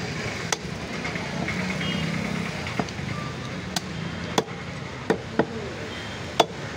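Butcher's cleaver chopping through a lamb head on a wooden chopping block: about seven sharp chops at irregular intervals, the loudest near the end.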